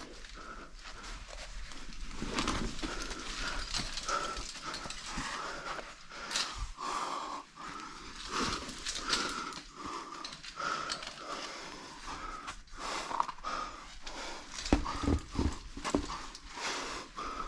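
A climber breathing hard in short, repeated pants and wheezes while straining up a rock chimney, with scattered knocks throughout.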